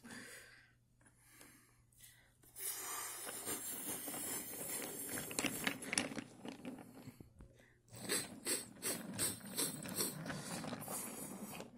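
Thomas Wooden Railway toy engines and trucks pushed by hand along wooden track: wooden wheels rolling with a low rumble and scattered clicks. It comes in two stretches, the second starting about eight seconds in.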